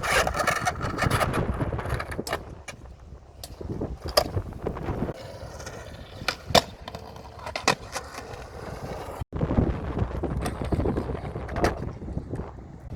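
Gusty wind buffeting the microphone in uneven rumbling surges, with scattered sharp knocks and clatters; the sound cuts out for an instant about nine seconds in.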